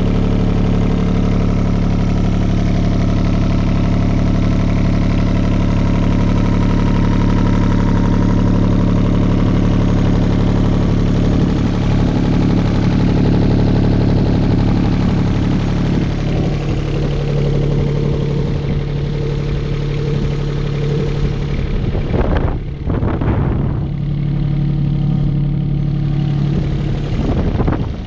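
Komatsu PC20MR-2 mini excavator's diesel engine running steadily. Its note drops a little about halfway through, and there are a couple of brief swells in the sound near the end.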